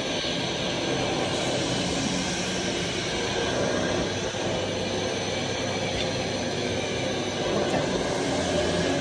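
Steady mechanical background noise: an even rumble and hiss with faint, held humming tones and no distinct events.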